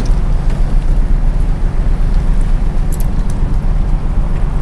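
Wind buffeting the microphone: a loud, steady low rumble, with a few faint clicks about three seconds in.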